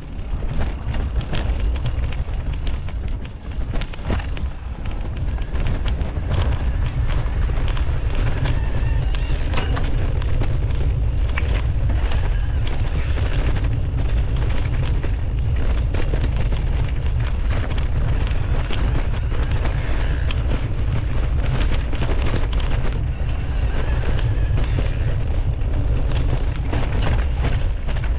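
Wind buffeting an action camera's microphone on a moving mountain bike, a heavy low rumble, with many short clatters and knocks from the bike running over a rough trail. The rumble grows louder and steadier about five seconds in.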